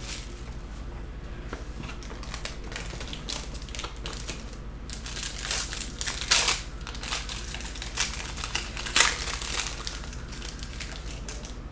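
Foil trading-card pack wrapper crinkling and rustling in the hands as the pack is opened, in irregular crackles with the loudest about six and nine seconds in.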